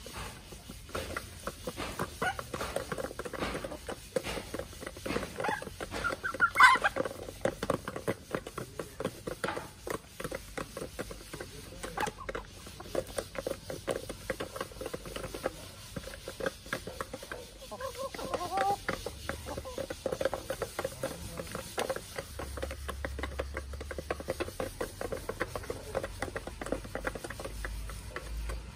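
Backyard chickens pecking feed off bare dirt: a quick, uneven patter of beak taps with soft clucking underneath. There is a louder call about seven seconds in and a shorter one near the nineteenth second.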